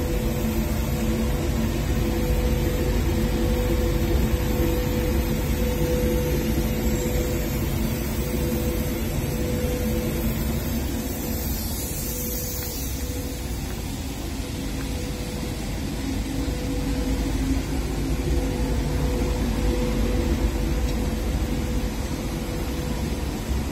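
An automatic powder coating booth with a filter recovery system running: a steady machine noise with a constant hum, from the booth's extraction fan and automatic spray guns as powder is sprayed onto metal gates.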